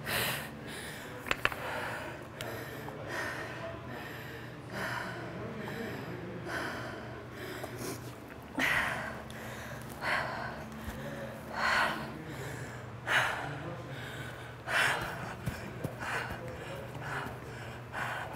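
A woman breathing hard from exertion: sharp, forceful exhales about every one and a half seconds, growing stronger in the second half, over a steady low hum.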